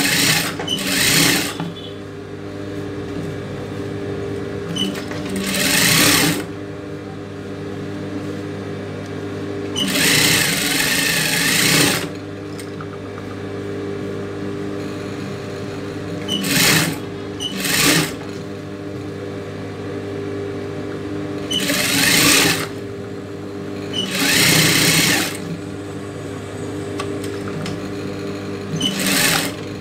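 Industrial lockstitch sewing machine stitching in about eight short bursts of a second or two each, the longest near the middle, with a steady motor hum between the bursts.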